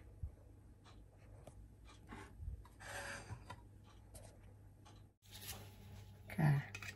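Faint handling noise: light rubbing and scattered soft ticks, with a short louder sound near the end.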